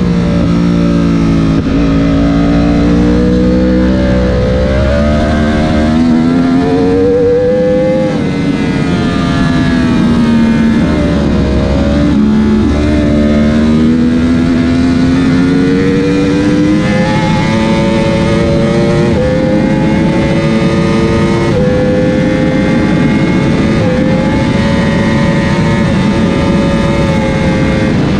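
Yamaha R1 superbike's inline-four engine at race pace. Revs rise and fall through a corner in third gear, then the bike accelerates hard up through the gears to sixth, with quick stepped upshifts and a steady wind rush.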